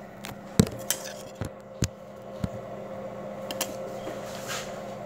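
Parmigiano Reggiano being grated on a flat metal hand grater: several sharp taps and knocks of the grater in the first couple of seconds, then soft rasping strokes of cheese on the blades. Under it runs a steady hum from the rotating countertop pizza oven.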